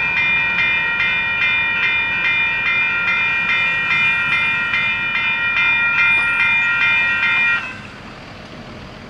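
Railroad grade-crossing warning bell ringing in a fast, even rhythm while the crossing gates rise, cutting off suddenly about seven and a half seconds in once the gates are up.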